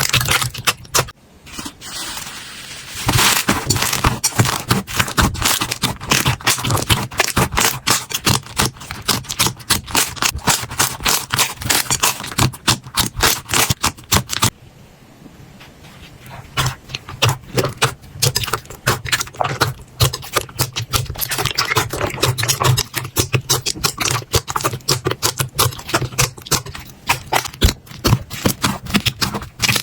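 Slime being squeezed and pressed by hand: a dense, rapid run of sticky clicks, pops and crackles, with a short lull about halfway through.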